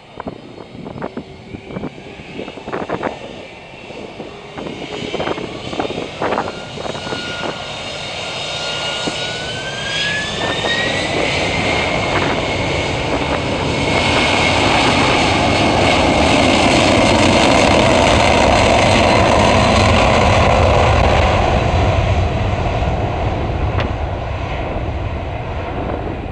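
Boeing 767-300 jet airliner taking off: the engine whine rises in pitch about ten seconds in as the engines spool up to take-off power, then the jet noise grows to its loudest past the middle and slowly fades as the aircraft climbs away. Scattered sharp clicks in the first several seconds.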